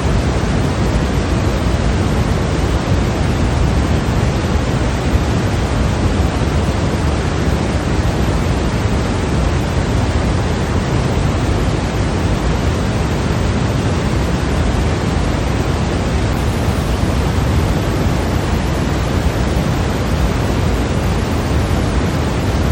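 Continuous white noise: a steady, unchanging hiss that is fuller in the low end.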